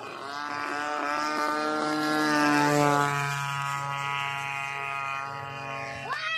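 Homemade RC airplane's grass-cutter engine buzzing in flight overhead. The note grows louder to a peak about two and a half seconds in, then fades while its pitch slowly falls.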